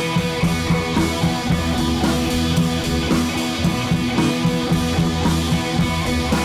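Background workout music: an upbeat rock-style track with guitar and a steady drum beat.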